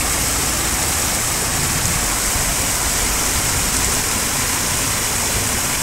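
Water gushing steadily out of a metal chute and splashing over the bank into a pond as a load of young fish is released for stocking.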